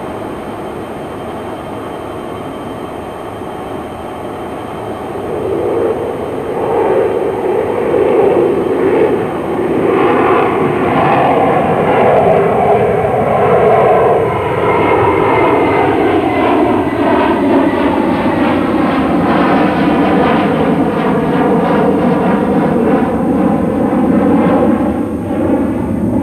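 English Electric Canberra's twin Rolls-Royce Avon turbojets in a flypast: a steady jet rumble that grows louder about five seconds in, then a pitch that sweeps downward as the aircraft passes.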